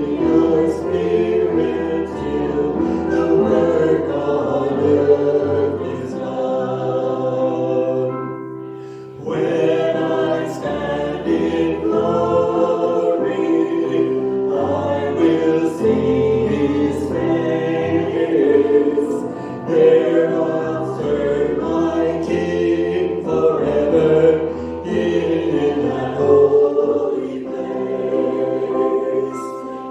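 A choir singing a hymn with accompaniment, pausing briefly about eight seconds in before the next phrase.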